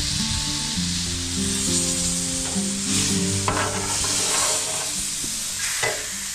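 Pork chops sizzling steadily on a Blackstone propane griddle, with a metal spatula scraping the griddle top briefly about halfway through and again near the end. Background music plays underneath.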